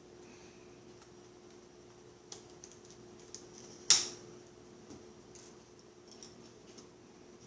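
Small clicks and taps of laptop parts being handled during a screen replacement, with one sharp, much louder clack about four seconds in.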